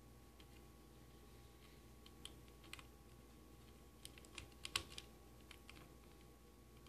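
Small, scattered clicks and taps, a quick cluster about four to five seconds in: component leads and jumper wires being pressed into a solderless breadboard.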